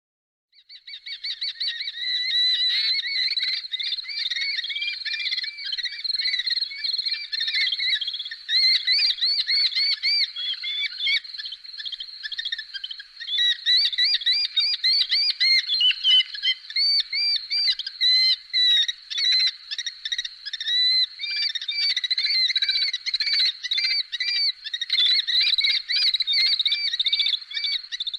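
Bird-of-prey calls: a rapid, unbroken series of short, high, arched cries from more than one bird, starting about half a second in.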